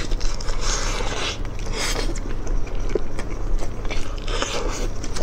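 Close-miked eating sounds: a man biting and chewing pieces of meat in chili oil, several separate bites and chews.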